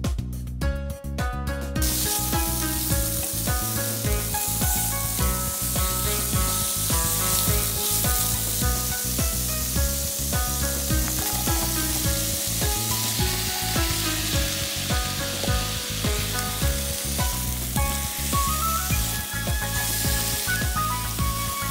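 Sliced pork belly sizzling as it fries in a pan, stirred with wooden chopsticks; the sizzle sets in about two seconds in and carries on as cut root vegetables are added and stir-fried with the pork. Background music plays throughout.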